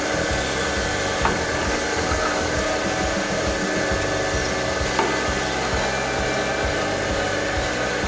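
Drill press running steadily as its twist bit drills through a thin metal plate, with a few short sharp clicks.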